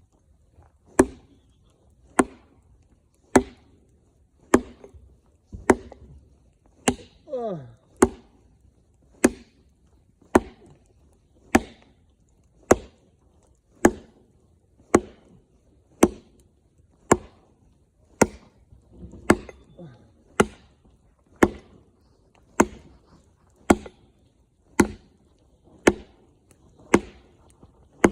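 Axe chopping wood in a steady rhythm of sharp strikes, a little under one a second.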